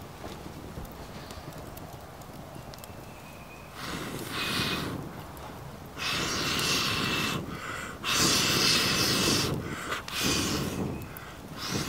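A person blowing long, hard breaths through cupped hands onto embers to bring a small campfire up to flame: about five blows roughly two seconds apart, the first about four seconds in.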